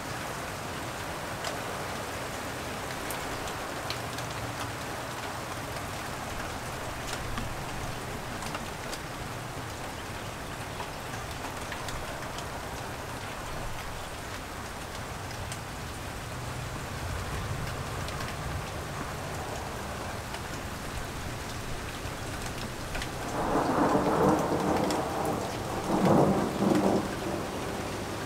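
Steady light rain falling, with a rumble of thunder building near the end and swelling twice.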